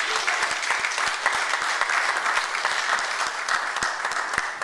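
A church congregation applauding, many hands clapping together, easing off near the end.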